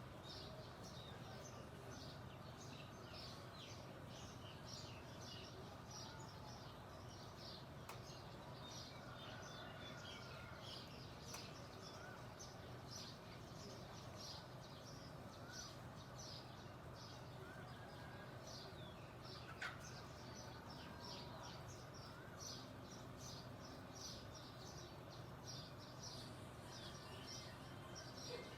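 Songbirds chirping faintly: many short, high chirps overlapping throughout, over a steady low background hum.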